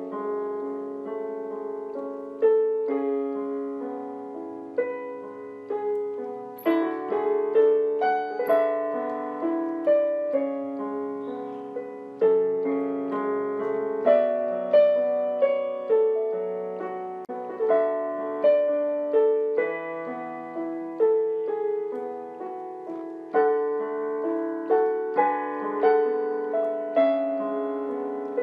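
Solo piano music: notes and chords struck one after another, each left to ring and fade.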